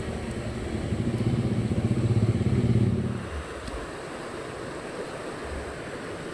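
A motor vehicle engine running nearby, growing louder and then cutting off about three seconds in, followed by the steady rush of flowing river water.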